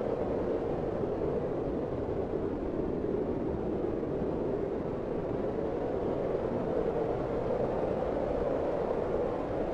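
Smooth, cold wind blowing steadily: a low, even rushing that swells gently and eases off.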